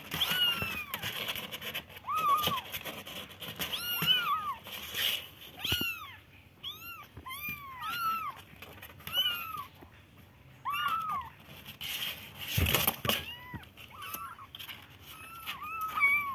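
Young kittens meowing over and over, short high mews that rise and fall, about one a second and sometimes two at once. A brief scuffing noise about two-thirds of the way through.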